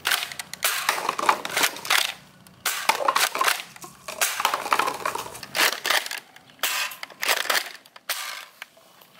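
Paper cups being shot off a stack by a toy grenade launcher: a long, irregular run of short clattering, crunching hits as the cups are struck and tumble. The hits thin out near the end.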